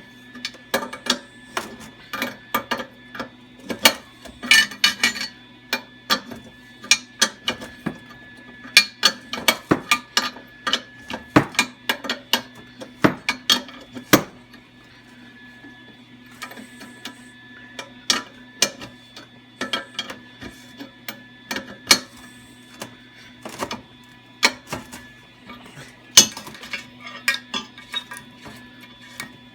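Hand tools clicking and clinking on metal in quick, irregular strokes while rubber-clogged threads are cleaned out, over a faint steady hum.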